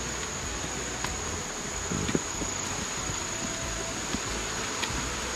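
Steady high-pitched insect drone running without a break, with a few faint footsteps and knocks from walking on the trail, the loudest about two seconds in.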